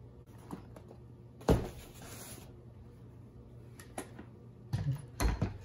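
A robot vacuum set down on a wooden tabletop with one sharp knock about a second and a half in, followed by scattered light clicks and a couple of dull knocks of handling near the end.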